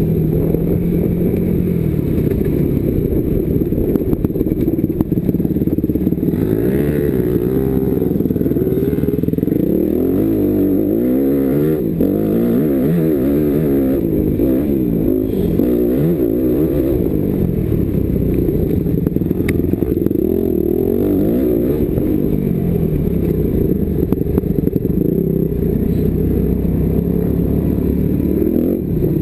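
Motocross bike engine heard close up from on the bike, revving up and down again and again as the rider accelerates and rolls off through the track's turns and straights. The sound is dull, with little above a low-mid range.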